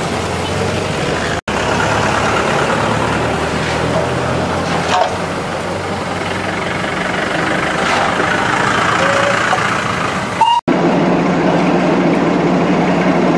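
Darjeeling Himalayan Railway steam locomotive hissing steam, mixed with steady street traffic noise and a few short horn toots. The sound changes abruptly twice, and a steadier low drone runs through the last few seconds.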